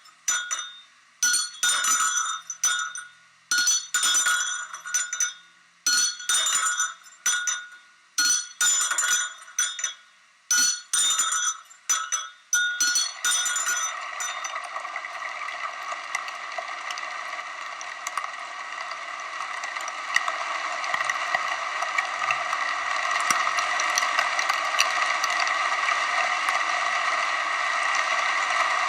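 Kinetic sound machine striking glassy, metallic objects in short clinking bursts with ringing tones, about one burst a second. About halfway through, this gives way to a dense, continuous rattle of many small motor-driven elements, a kinetic sound installation, which grows slightly louder near the end.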